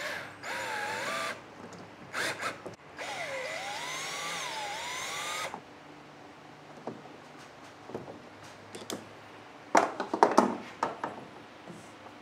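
Cordless drill/driver driving screws in two runs, a short one and then a longer one of about two and a half seconds, its motor pitch dipping and rising as the screw bites. A cluster of knocks and clicks follows about ten seconds in.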